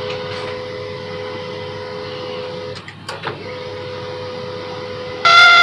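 Canon LBP 2900 laser printer running a print job with a steady motor hum and a few clicks about three seconds in. Near the end a loud, high squeal sets in at paper pickup: the printer's fault, which the repairer traces to the gear drive.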